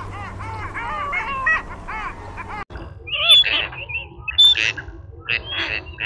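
Waterbirds calling in a dense chorus of short, arched calls. About two and a half seconds in the sound cuts abruptly to a different set of louder, higher, sharper bird calls, spaced apart.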